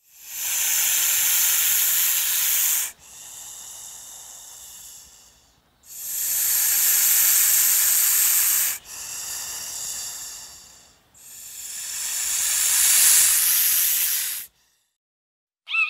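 Common European viper (adder) hissing: three long, loud hisses of about three seconds each, with softer hisses between them.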